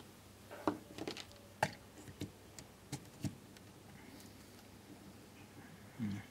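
Light clicks and taps of hands handling hook-up wire and a screwdriver at a contactor's screw terminals: a string of short clicks in the first few seconds, then a soft knock near the end.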